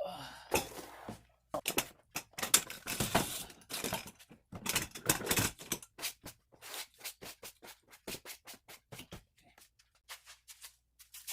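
Clatter of an under-dash creeper being mounted: a string of sharp clicks and knocks from its metal stand and latches. The clicks come irregularly at first, then quickly and evenly, about four a second, for a few seconds past the middle.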